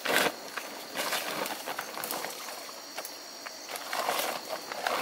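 Irregular rustling and crackling of a plastic sack and flattened corn stalks being handled, with the loudest rustle right at the start and another bout about four seconds in.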